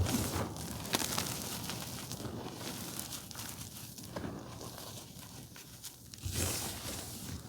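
Blue reformed gym chalk crumbling and crunching, many small dry crackles, over wind noise on the microphone that swells in a gust about six seconds in.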